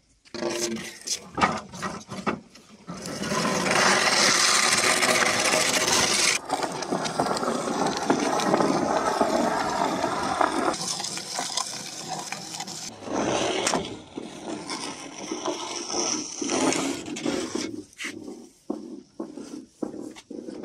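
Long green bamboo poles being handled: a sustained scraping as poles drag over the concrete road and each other, with separate knocks and clatters before and after as poles are dropped and stacked.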